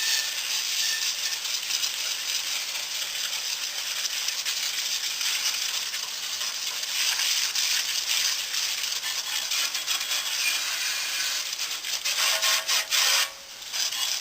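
Continuous gritty scratching of the go-kart's metal frame being sanded by hand, with many quick strokes. It gets louder shortly before the end and then stops abruptly.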